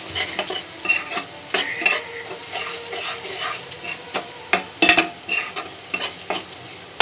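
A spatula stirring and scraping masala around a kadai, with irregular scrapes and taps against the pan over the sizzle of the frying masala, a few sharper clacks about five seconds in. The masala is still at the roasting (bhuna) stage and not yet done.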